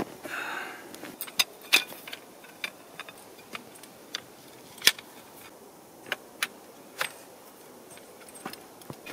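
Metal tent poles clinking and clanking as they are handled and fitted together: a dozen or so sharp, separate clinks at irregular intervals, the loudest about five seconds in.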